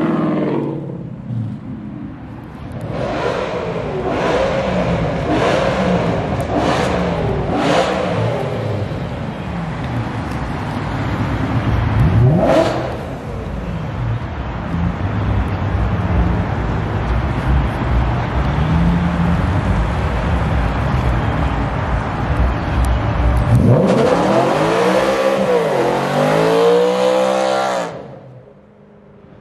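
Car engines revving and accelerating hard, one car after another, with rising pitch sweeps as they pull away. Near the end a car does a burnout: its engine revs up and down in repeated quick sweeps over a hissing tyre, then it cuts off sharply.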